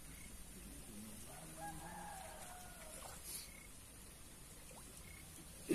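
A faint rooster crowing once, a single drawn-out call starting about a second in, with a short sharp knock at the very end.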